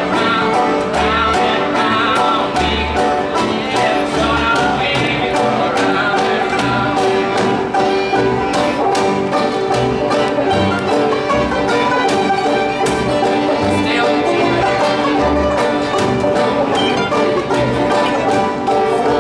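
Music with a steady beat in the bass and several instruments playing together.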